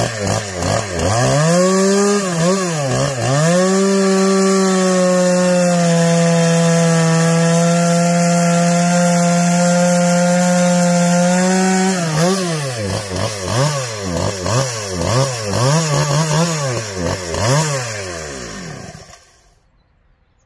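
A Husqvarna 365 SP, a ported 65 cc two-stroke chainsaw, is revved in a few quick blips, then held steady at high revs for about eight seconds. It then gives a run of quick blips, drops back and is switched off, going quiet about a second before the end.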